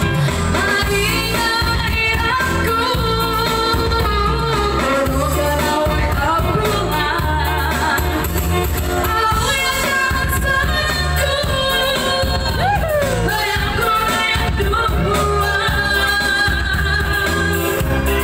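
A woman singing into a microphone over live electronic keyboard accompaniment with a steady bass beat, played through a PA speaker.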